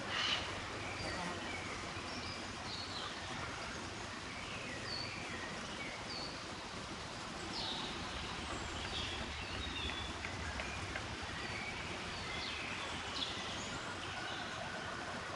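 Small birds calling with many short, high chirps over a steady outdoor hiss, with a few sharper, harsher calls among them.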